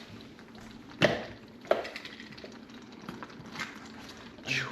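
A few sharp knocks, the two loudest about a second in and just under two seconds in, with fainter ones later.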